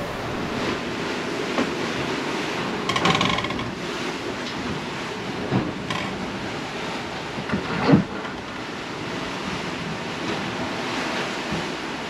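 Wind and rough seas rushing past a Leopard 45 sailing catamaran beating upwind into the waves. A brief rattle comes about three seconds in, and a few hard knocks follow, the loudest about eight seconds in.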